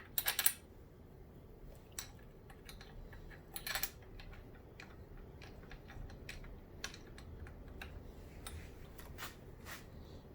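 Scattered light metallic clicks and taps of bolts being handled and hand-started into a dirt bike's top clamp, with a cluster of sharper clicks right at the start and another around four seconds in.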